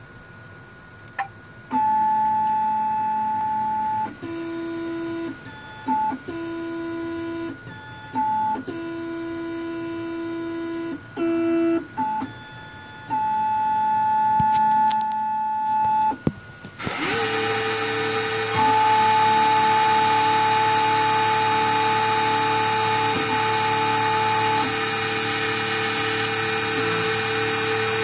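Computerized key-cutting machine: its positioning motors whine in a series of short moves at a few different fixed pitches, stopping and starting every second or two. About 17 s in, the cutting spindle starts and runs with a louder steady whine as the milling cutter comes down onto a Jeep Patriot key blank.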